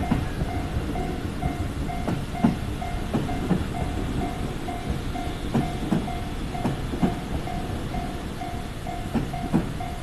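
Japanese railway level-crossing warning bell ringing in a steady repeated ding, about three a second, while a JR Chūō Line electric train passes over the crossing, its wheels clacking irregularly over the rail joints.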